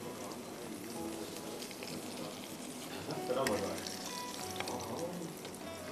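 Flour-and-sesame-coated chicken strips frying in hot oil in a wok, a steady sizzle. A spoon stirs and clinks against the pan about three and a half seconds in.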